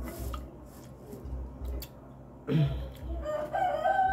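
An animal's long call starts suddenly a little over halfway through and is then held on one steady pitch.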